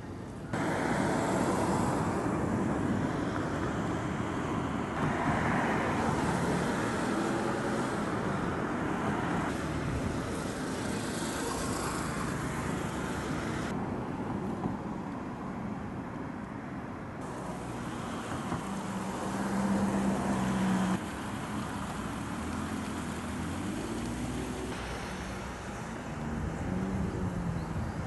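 Road traffic noise, a steady wash of passing cars. It changes abruptly several times where the recording cuts between shots. A low engine hum rises briefly a little past the middle.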